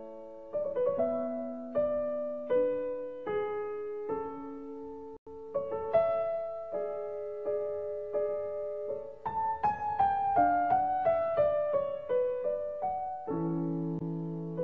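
Solo piano music of slow chords and single notes, each struck and left to fade, quickening into a run of faster notes about two-thirds of the way through.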